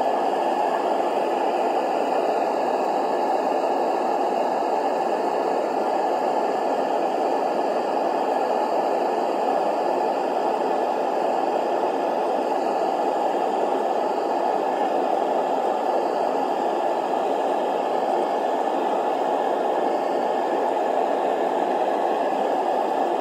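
Propane burner firing a metal-melting furnace, a steady rushing noise that does not change while aluminum melts in the crucible.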